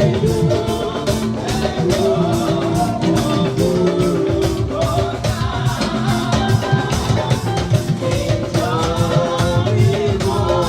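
A hymn sung by several voices with live instrumental accompaniment and a steady drum beat.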